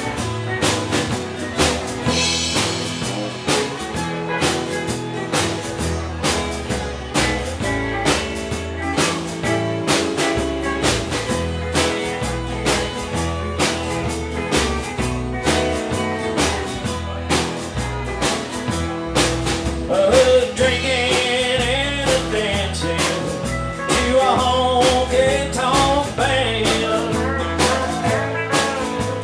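Live country band playing, with guitars, fiddle and a drum kit keeping a steady beat; singing comes in about two-thirds of the way through.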